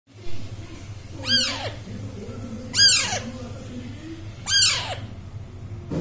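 Young Alexandrine parakeets calling: three short, harsh squawks about a second and a half apart, each rising and then falling away in pitch. A steady low hum runs underneath.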